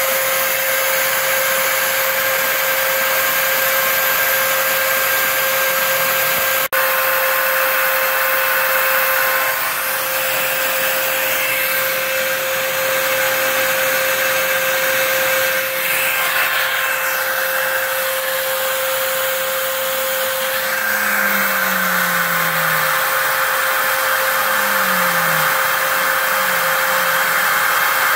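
A home-built CNC router spindle milling foam, giving a steady high whine over the rush of a shop vacuum drawing through the dust hose at the cutter. The sound cuts out for an instant about seven seconds in, and a few short falling hums come in low down about three-quarters of the way through.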